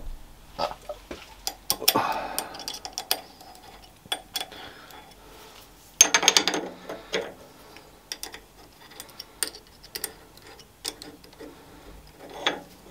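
Allen key and steel tool holder clicking and scraping as a turning tool is fitted and its set screws are worked: scattered small metallic ticks, with a louder clatter about six seconds in.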